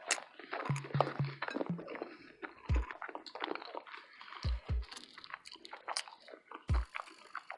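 Close-miked chewing and biting of a burrito: wet mouth clicks and crunching, with several short low thumps.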